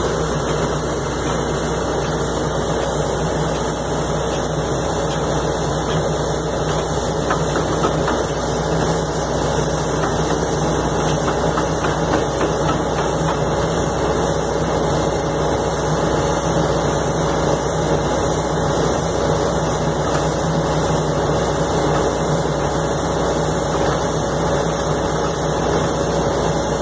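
Crawler-mounted hydraulic anchor drilling rig's engine and hydraulics running at a steady, unchanging pitch while the rig works casing drilling.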